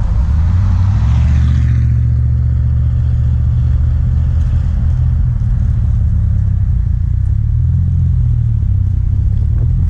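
Subaru flat-four engine and exhaust running at low speed, a strong low hum that rises briefly in pitch near the end. Wind and road noise fades out about two seconds in as the car slows.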